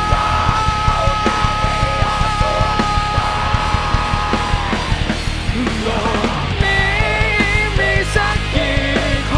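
Heavy rock band playing: distorted electric guitars, bass guitar and a drum kit with constant fast drumming. Two high guitar notes are held through the first half, then a bending melody line comes in about five seconds in.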